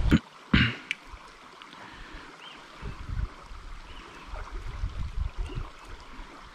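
Shallow river water running over stones, a low, even wash. Two or three short, sharp splashes or knocks come within the first second.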